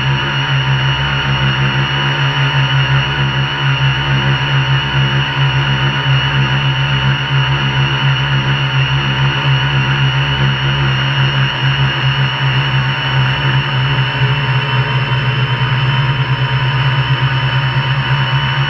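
MikroKopter quadcopter's electric motors and propellers running steadily in flight, a constant hum with a whine above it, heard from the craft itself, with a low flickering wind rumble on the microphone.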